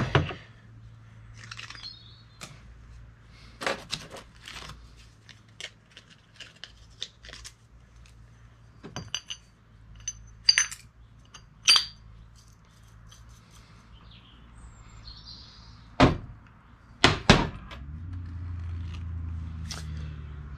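Steel differential parts handled on a workbench: scattered clinks and knocks, a few ringing metallically, with two heavier knocks close together late on. A low hum swells near the end.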